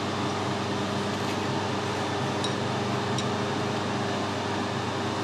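Steady machine hum, with two faint light ticks about halfway through.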